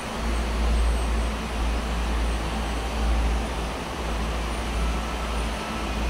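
Wind buffeting the microphone: a steady low rumble that swells and dips, with an even hiss over it.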